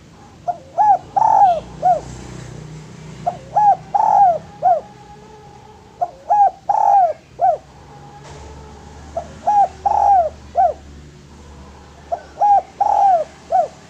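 Spotted dove (derkuku) cooing its song over and over: five phrases about three seconds apart, each a few short coos around one longer, louder coo.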